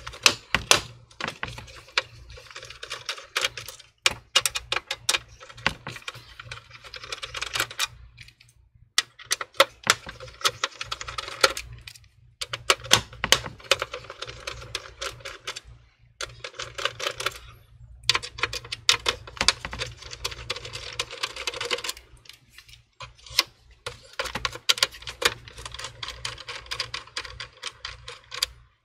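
Irregular sharp clicks, taps and rubbing from hands and a screwdriver working on a computer's metal chassis and circuit board as the motherboard's screws and cable connectors are undone, with a few short pauses.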